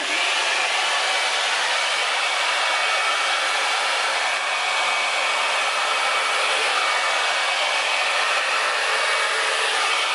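Hair dryer comes on and runs steadily, blowing wet acrylic paint across the canvas to push it out in a Dutch pour.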